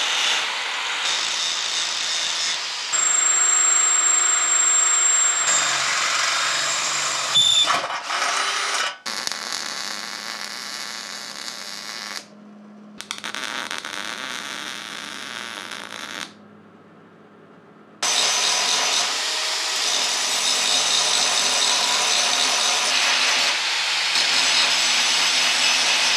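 Angle grinders cutting and grinding steel, a steady high whine over harsh grinding noise, with a stretch of electric welding crackle in the middle; the sound breaks off twice between clips.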